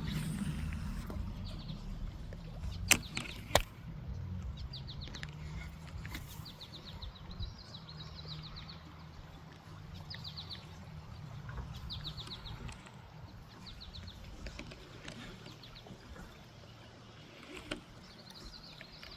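A songbird calling over and over in short, rapid, high trills, over a low steady rumble. Two sharp clicks come about three seconds in.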